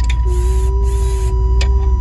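Cordless drill running steadily, turning a homemade winder that reels fence wire back onto a spool, with scattered clicks and rattles. The whine starts a moment in and stops near the end, over a steady engine rumble.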